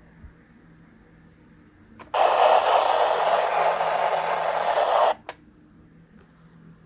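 Radio receiver static: a loud even hiss about three seconds long, cut in and out with a click at each end, over a low steady hum.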